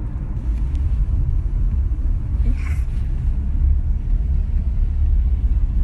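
Steady low rumble of a car's engine and tyres heard from inside the cabin while driving at freeway speed.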